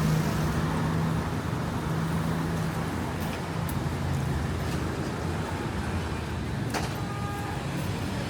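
City street ambience: steady traffic noise with a vehicle engine humming low for the first couple of seconds. A single sharp clack comes near the end, followed by a brief faint ringing tone.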